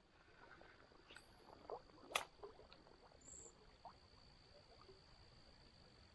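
Near silence: a faint steady high tone with a few soft clicks, the sharpest about two seconds in.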